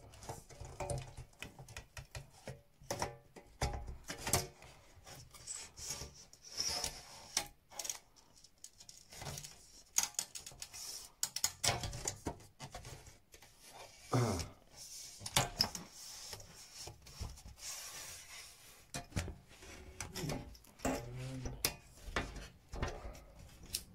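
Wooden frame strips being handled and fitted around the edge of a mirror: irregular knocks, taps and rubbing of wood.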